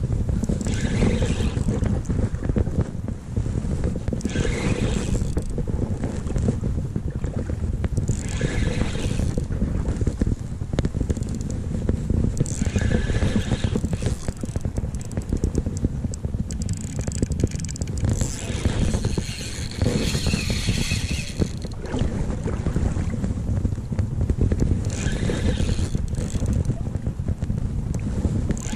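Steady wind rumble on the microphone, with short high whirs from a spinning reel every few seconds, longer around the middle, as a hooked salmon is played.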